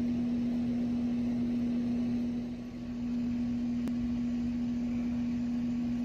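A steady machine hum at one held pitch over a low rumble, with a single short click about four seconds in.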